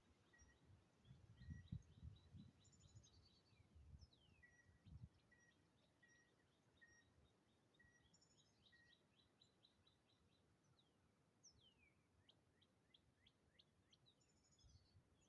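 Faint birdsong from several birds: a short note repeated again and again, with quick trills and downward-sweeping calls above it. A few low bumps come in the first five seconds.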